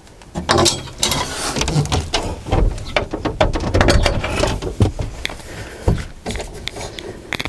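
Irregular clunks, knocks and rattles of a homemade fold-out bed shelf of steel profile tube and plywood being lowered and set in place in the back of a UAZ Bukhanka van, with hands shifting the foam mattress pads on top.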